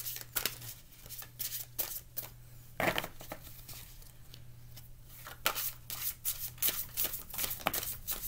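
A deck of oracle cards shuffled by hand: quick, irregular papery clicks and snaps as the cards slap together, with one louder swish about three seconds in. The shuffling pauses for about two seconds, then picks up again.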